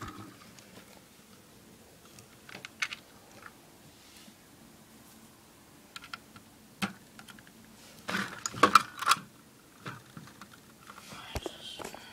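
Plastic LEGO pieces clicking and clattering as they are handled, in scattered clicks with a quick, louder flurry about eight to nine seconds in.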